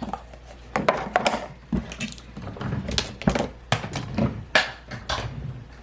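Irregular clicks and knocks of small objects being handled and set down.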